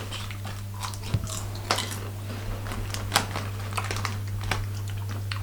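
Potato crisps being bitten and chewed: irregular dry crunches, a few louder than the rest.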